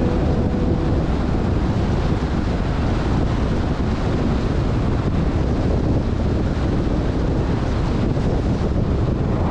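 Steady rushing road and wind noise of a car driving, with a heavy low rumble.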